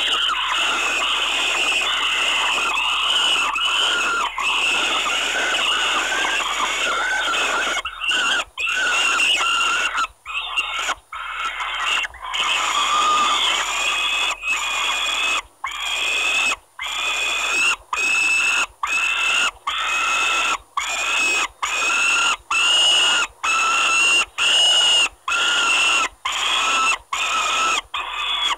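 Peregrine falcon nestlings screaming harshly while begging for food from the adult. The screaming is nearly unbroken at first, then from about halfway it becomes a run of repeated screams, roughly one a second.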